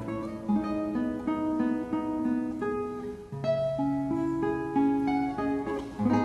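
Acoustic guitar music: a melody of plucked notes over chords, with a low bass note held for a few seconds in the second half.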